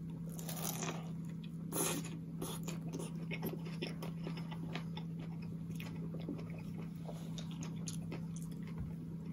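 A man biting into a double-meat Subway Italian BMT sub on Italian herb and cheese bread, then chewing the mouthful. Two louder bites come in the first two seconds, then many small chewing clicks, over a steady low hum.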